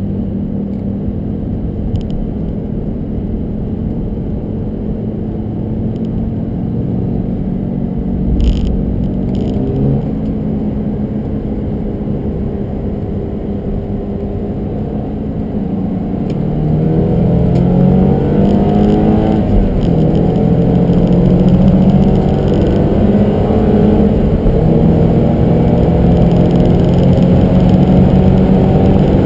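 Porsche 968's 3.0-litre four-cylinder engine heard from inside the cabin. It runs at a steady pitch at first, then from about halfway it gets louder and climbs in pitch under hard acceleration, dropping briefly at a gear change before climbing again.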